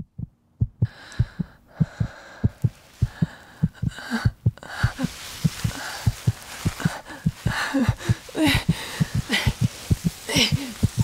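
A fast heartbeat: an even run of low thumps, about four a second, standing for a victim's fear. From about halfway a hiss and short rising-and-falling cries join it.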